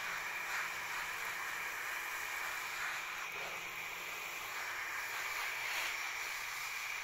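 Garden hose shower nozzle spraying water onto soil and plant leaves: a steady hiss.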